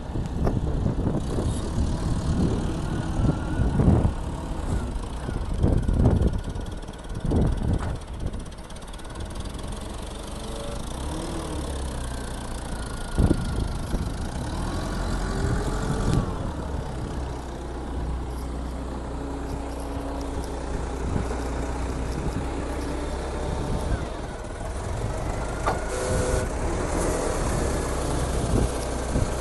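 LPG-fuelled engine of a 1992 Kalmar GC4.5-500 forklift running as the truck drives and manoeuvres, a steady low drone. Several loud low rumbles come in the first eight seconds, and a whine glides up and down in pitch a few times around the middle and again near the end.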